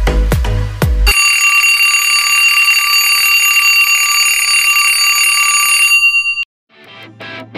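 Alarm clock ringing steadily for about five seconds, then cutting off sharply. Drum-heavy electronic music plays for the first second, and soft plucked-string music begins near the end.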